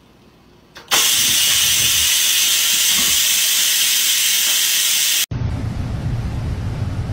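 Electric pressure rice cooker venting steam: a sudden loud, steady hiss starts about a second in, lasts about four seconds, then cuts off abruptly. A quieter steady low rumble follows.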